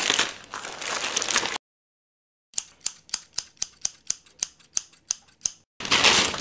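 Plastic wrapping crinkling as a keyboard is pulled from its bag. It cuts to silence, then comes a scissors-snipping sound effect: a quick run of about fourteen sharp snips, about five a second. After that the plastic crinkling picks up again.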